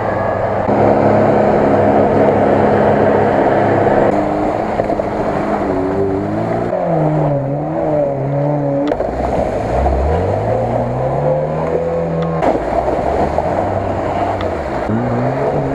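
Lada Niva engines revving hard under load as the wheels spin in mud. The revs are held high at first, then rise and fall repeatedly, with the engine note changing abruptly several times.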